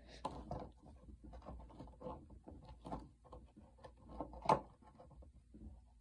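Scattered light clicks and taps of a hand screwdriver and parts being worked on a Hoover WindTunnel vacuum's plastic housing, with one louder knock about four and a half seconds in.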